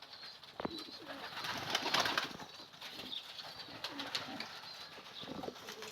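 Domestic pigeons cooing softly, with a few small clicks and rustles.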